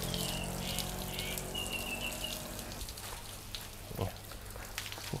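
Garden hose jet spraying against a fiberglass boat hull, the water spattering and dripping off it; the spray eases off about three seconds in, and a single knock follows near four seconds.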